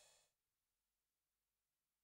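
Near silence at the end of a song's fade-out.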